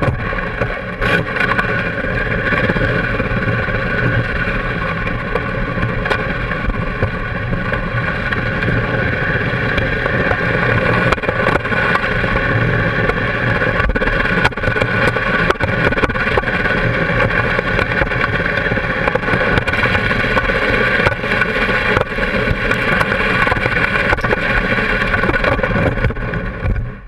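Can-Am Spyder three-wheeler's engine running at a steady pitch throughout.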